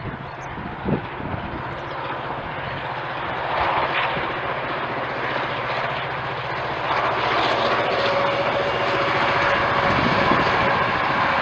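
DSB MY 1135, a NOHAB-built MY class diesel-electric locomotive, approaching with its EMD two-stroke V16 diesel engine running steadily and growing louder as it nears. A steady whine joins about eight seconds in.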